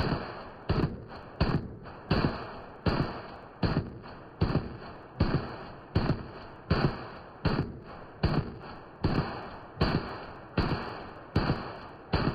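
Zastava M70 AK-pattern rifle in 7.62×39 firing a rapid string of single shots during a mag dump, about one every three quarters of a second, each shot trailing off in echo. The firing stops with a shot near the end.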